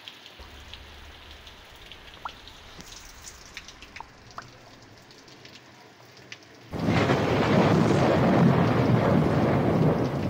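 Heavy monsoon rain. At first the rain is faint, with a few scattered drop ticks; about two-thirds of the way in it cuts abruptly to a loud, dense downpour.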